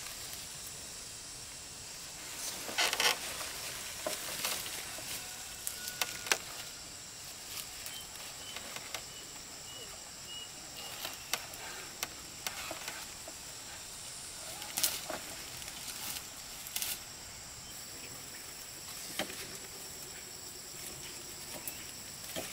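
Irregular rustling, scraping and light knocks from hand work among plants and soil, over a steady high-pitched whine.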